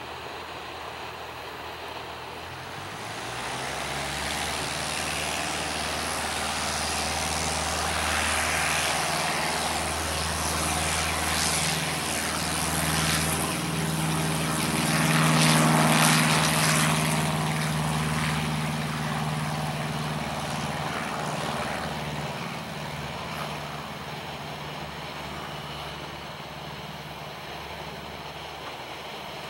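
Cessna 152's four-cylinder Lycoming engine and propeller at full takeoff power. It grows louder as the plane approaches, is loudest about halfway through as it passes close by, then fades as it runs on down the runway.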